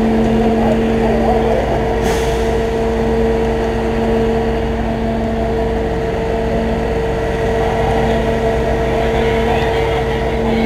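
Fire truck's diesel engine running at a steady speed, a constant hum with low rumble. About two seconds in there is a short hiss of air.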